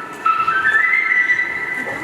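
Whistle-like melody from the song's intro playing over the sound system: held notes that step between pitches, with a short break just after the start.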